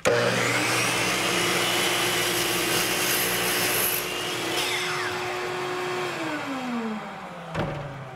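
DeWalt miter saw switched on, running steadily while it crosscuts a half-inch walnut board, then released and spinning down with a falling whine; a single knock near the end.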